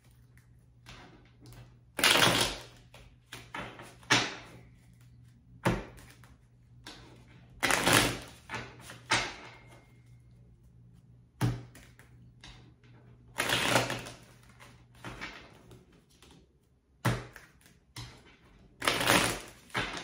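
A deck of tarot cards being shuffled by hand: repeated short bursts of flicking, rustling card noise, about eight in all, with quiet pauses between them.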